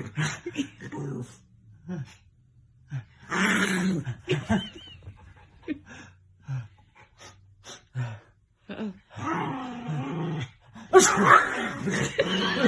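Dog growling and yipping in short bouts, with a loud sudden outburst near the end; the dog is reacting to a man's sneezing.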